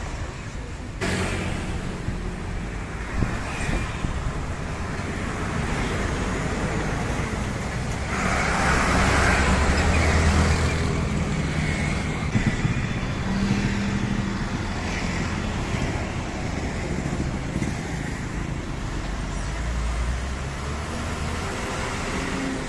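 Street traffic with heavy trucks driving past close by: diesel engines running and tyre noise, loudest about eight to eleven seconds in.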